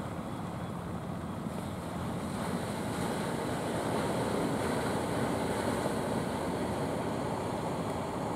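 Surf washing on the shore with wind on the microphone, swelling from about two seconds in. The low engine hum of an outrigger fishing boat is faintly heard under it at the start.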